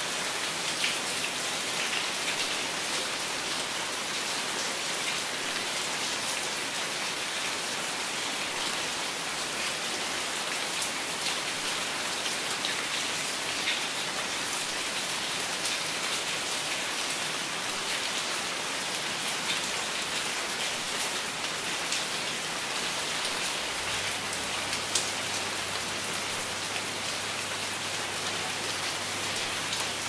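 Shallow mountain river rushing over rocks: a steady splashing of fast-flowing water.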